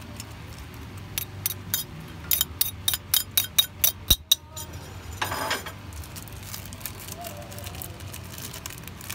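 Metal spoon clinking against a ceramic plate as chopped onion is scraped off into the cooking pot: about a dozen sharp clinks starting about a second in and quickening to three or four a second. A short scraping noise follows about five seconds in.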